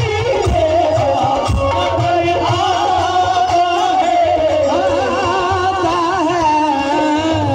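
Live qawwali: a singer draws out a long, ornamented melodic line over harmonium, with drum beats in the first second or two that return near the end.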